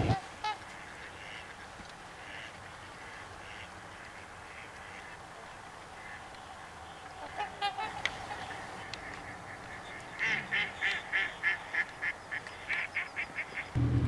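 Swans honking: a few calls about seven seconds in, then a quick run of repeated honks from about ten seconds in, over a faint steady hiss.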